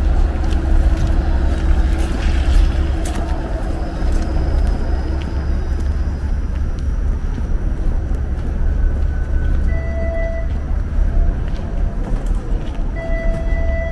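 Downtown street traffic with a low-floor TTC streetcar running past, over a steady low rumble. A few short, high pitched tones sound in the later seconds.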